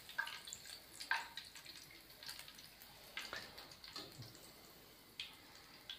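Faint drips of hot cooking oil falling back into a karahi as a deep-fried chicken leg is held above it on a wire skimmer, with a few short scattered ticks about once a second.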